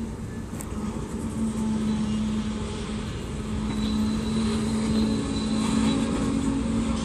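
Kansas City Southern de México freight train rolling past, its boxcars making a steady rumble with a held low hum, growing slightly louder.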